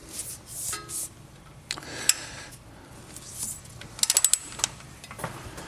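Hand tools working on a wheel hub while wheel studs are installed: knocks, rustles and scrapes, with a quick run of about six sharp clicks about four seconds in.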